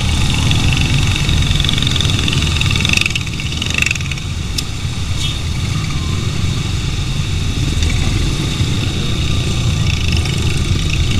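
Motorcycle engine running steadily at low revs, with a dense low rumble that eases slightly about three seconds in.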